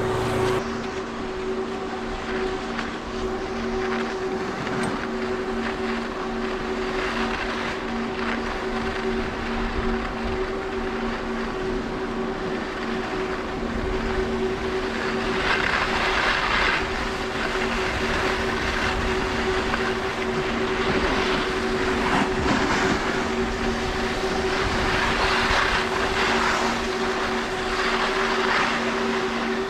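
Skis sliding and scraping over snow with wind noise on the microphone, the rush swelling several times, over a steady low hum.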